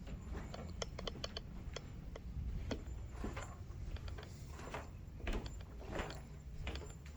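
Irregular light clicks and knocks, a few bunched closely together about a second in, over a steady low rumble of handheld-camera handling noise.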